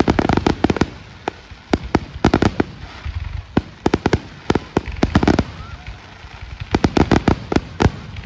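Aerial fireworks going off in rapid volleys: many sharp bangs from shells bursting and launching, in quick clusters with a short lull about six seconds in.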